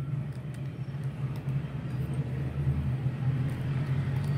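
Steady low hum over a rumbling background noise, growing a little louder toward the end.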